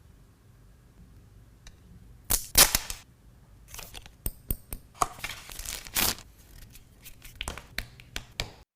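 Smartphone box packaging being opened by hand: a loud tearing rip about two and a half seconds in, then a run of sharp clicks, crinkles and rustles.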